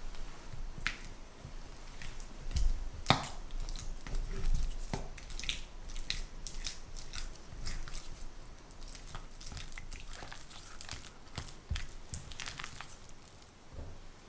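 Silicone spatula pressing and smearing a block of cream cheese against a glass mixing bowl to soften it: a string of irregular, sticky scraping strokes, the loudest about three seconds in.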